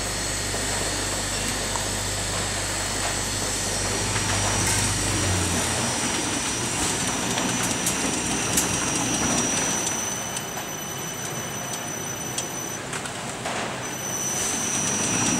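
Automatic tubular fabric spreading machine running as it travels along the cutting table laying fabric: a steady machine noise. A low hum stops about five and a half seconds in, and there are a few faint clicks.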